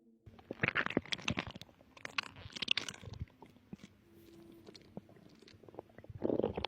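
Stomach gurgling recorded close against a pregnant woman's belly: bursts of crackly, popping bowel sounds, loudest in the first three seconds and again just before they cut off abruptly at the end. Faint background music with a held tone runs underneath.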